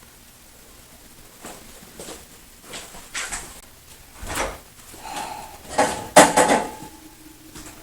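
Kitchen clatter: a run of knocks and clinks, like drawers or cupboards being opened and dishes handled, getting louder, with the loudest clatter and a brief ringing tone near the end.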